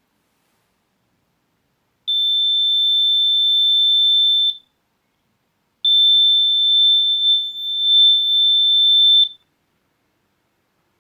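Arduino-driven buzzer sounding a steady high-pitched tone twice, the first for about two and a half seconds, then, after a short gap, again for about three and a half seconds. It sounds while an object is within 5 cm of the ultrasonic distance sensor.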